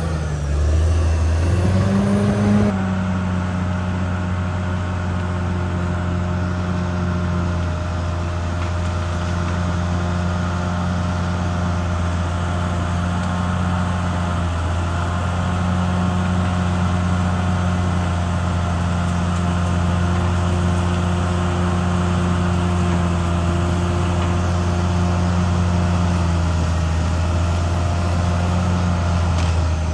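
Caterpillar D6R XL bulldozer's diesel engine running under steady work, its pitch dipping and coming back up in the first few seconds, then holding steady.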